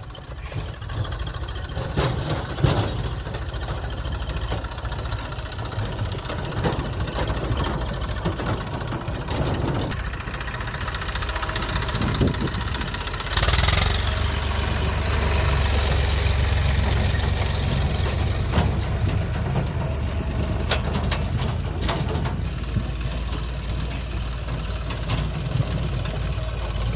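JCB 3DX backhoe loader's diesel engine running under working load, with scattered short clanks. The engine rises to a louder, heavier note about halfway through and stays there.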